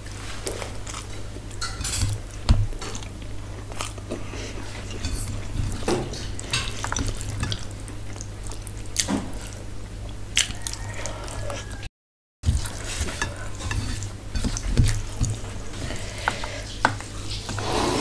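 Close-miked eating by hand: fingers squishing and mixing rice on a stainless steel plate, with chewing and small wet mouth clicks, over a steady low hum. The sound drops out completely for about half a second near the middle.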